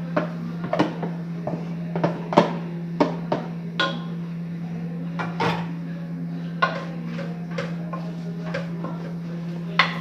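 A spoon stirring chicken filling in a pan, clinking and knocking irregularly against the pan, over a steady low hum.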